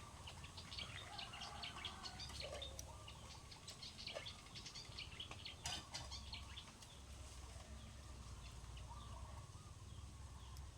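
Small birds chirping, many short high calls in quick succession that thin out after about six seconds, over a faint steady low rumble.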